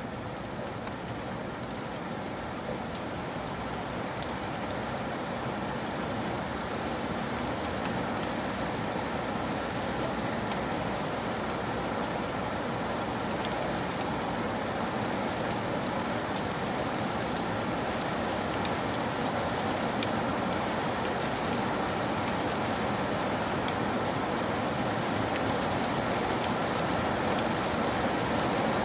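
Steady rain, with many separate raindrops striking a surface, growing gradually louder.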